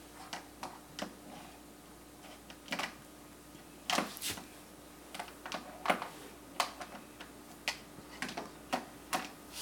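Irregular light taps and knocks, a toddler's hands patting and knocking on a window sill and glass, coming more often and louder from about four seconds in, over a faint steady hum.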